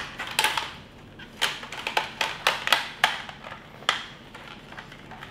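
Hard plastic clicks and knocks, about a dozen at irregular intervals, from a Nerf Captain America shield toy blaster being folded shut and handled.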